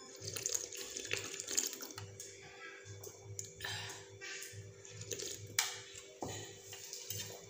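Slurping noodles and broth from the edge of a plate: a series of short, wet, irregular slurps, over a steady low hum.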